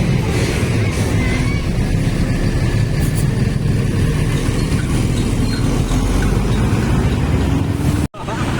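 Road traffic dominated by the low, steady rumble of a heavy bus engine, with no horn sounding. The sound cuts out for an instant near the end.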